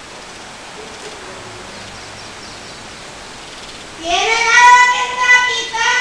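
A faint street background, then about four seconds in a high voice starts a sung street-vendor's cry advertising chair upholstery and repairs, holding one long steady note.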